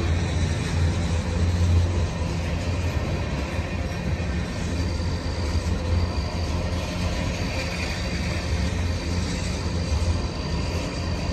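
Freight train of tank cars rolling past, its wheels on the rails making a steady low rumble. A faint high whine comes and goes in the second half.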